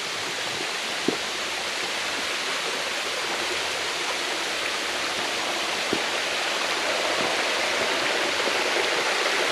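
Steady rush of falling water from a creek waterfall, growing slightly louder, with two faint knocks about a second in and near six seconds.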